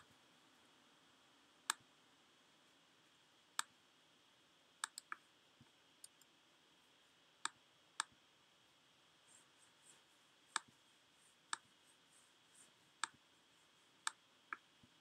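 Sharp single clicks of a computer's pointer button, about fourteen spread unevenly, a few coming in quick runs of two or three, against very quiet room tone.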